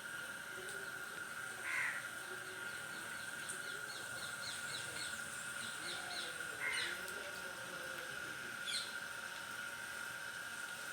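Birds calling: two short calls about five seconds apart, a quick run of about a dozen high chips between them, and a sharp high call near the end, over a steady high-pitched tone.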